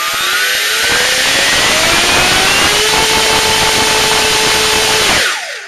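Contra-rotating pair of brushless electric motors driving two counter-rotating propellers, run up to speed: a loud motor whine and propeller noise rising in pitch over the first three seconds, then holding steady. About five seconds in the throttle is cut and it spins down with a falling pitch.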